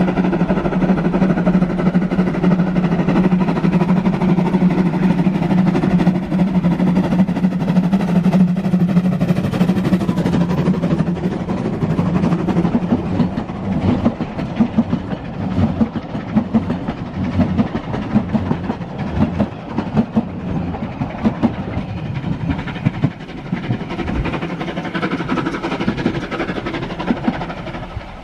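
Narrow-gauge steam train: the locomotive's whistle sounds one long steady blast for about the first ten seconds, then the coaches roll past with a rhythmic clatter of wheels over the rail joints, fading near the end.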